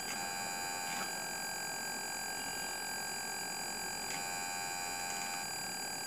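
Toy RC car transmitter's radio control signal, picked up by a dangling wire on a sound card's mic input and heard as a steady electronic buzz made of several high tones. The buzz shifts in pattern twice, just as it begins and about four seconds in, with faint clicks as the transmitter buttons are worked.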